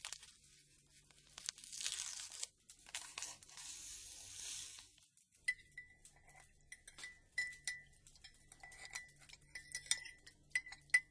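Sugar poured into a small cup with a rustling hiss in two spells. Then, from about halfway through, a teaspoon stirs and clinks against the cup over and over, each tap ringing briefly.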